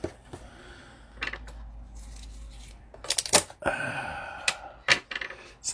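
A cardboard Panini Prizm basketball-card hanger box being handled and opened: a quick cluster of sharp cardboard clicks as the end flap is pulled open about three seconds in, then a short crackle and two single clicks.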